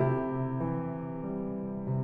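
Soft background music on a keyboard: sustained chords, with a new chord struck at the start and another near the end.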